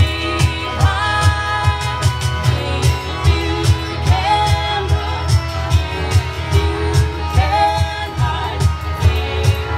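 Live band playing a song: a sung melody over guitars and a strong bass, with a steady beat about twice a second.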